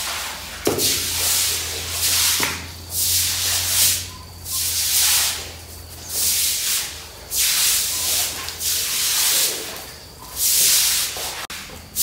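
Plastic-bristle brooms scrubbing a wet concrete floor, a hissing scrape with each stroke, about one stroke a second and uneven.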